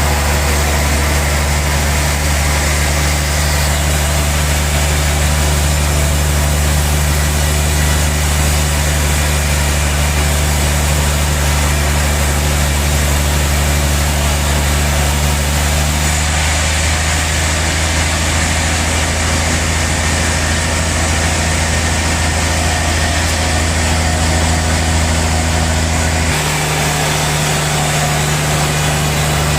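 Sawmill saw and its drive running steadily under load, a loud machine drone with a hissing cutting noise as a large log is sawn into slabs. The pitch of the drone shifts about halfway through and again near the end.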